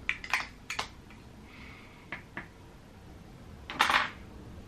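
Light clicks and taps from a lipstick being handled, a quick cluster in the first second and two more a little past two seconds, then one short, louder rustling swish about four seconds in.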